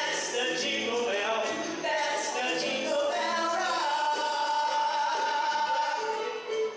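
A man and a woman singing live into microphones over backing music, with one long held note a little past halfway.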